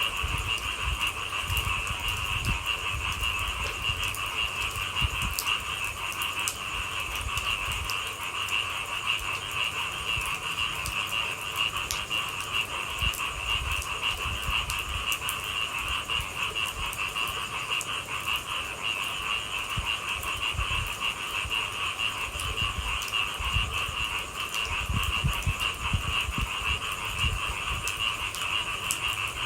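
A dense chorus of frogs calling steadily, with scattered faint ticks and an uneven low rumble underneath.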